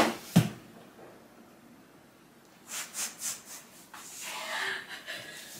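A woman's short, breathy puffs of stifled laughter, a few in a row about three seconds in, followed by faint rustling.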